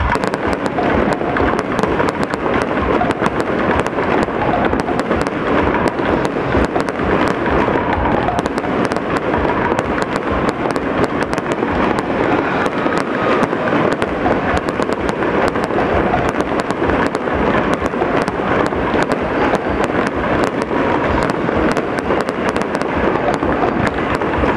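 Aerial fireworks bursting overhead in a dense, continuous barrage: many sharp bangs and crackles a second, one on top of another.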